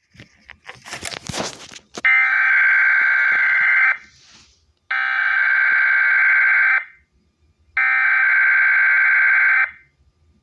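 Specific Area Message Encoding (SAME) header of a NOAA Weather Radio Required Weekly Test: three identical buzzy electronic data bursts of about two seconds each, about a second apart, announcing the test. Irregular crackling and clicks come before the first burst.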